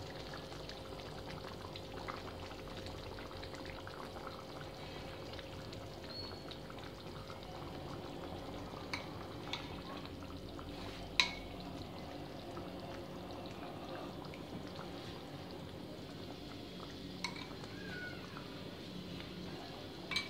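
Chicken curry simmering gently in a pan over a low gas flame, a steady low hiss. A handful of sharp spoon clicks come as curd is spooned in, the loudest about eleven seconds in.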